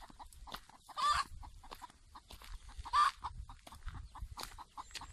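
Chickens squawking: two loud calls, about a second in and about three seconds in, over scattered short clicks and crackles.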